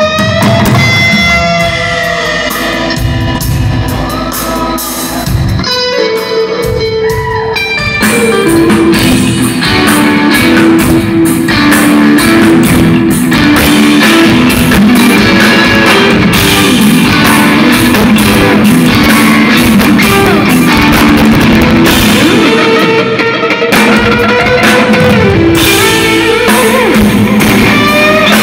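Live instrumental rock band: a lead electric guitar plays a melody with pitch bends over drums and bass. The playing is softer for a moment, then the full band comes in louder about eight seconds in.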